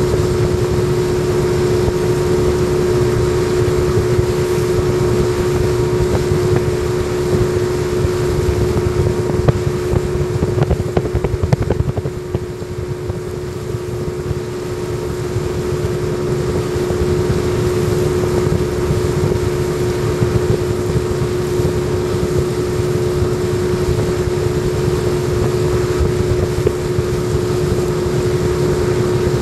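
Yamaha 40 hp two-stroke outboard motor running steadily under way, a constant drone with one strong steady note and a low rumble beneath it. A few knocks and a slight dip in level come about ten to twelve seconds in.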